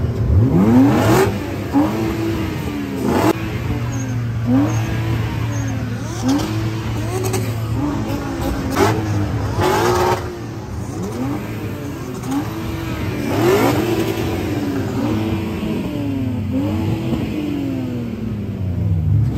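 Drift cars' engines running in the grid, blipped over and over, each rev rising and falling in pitch about once a second over a steady idle drone.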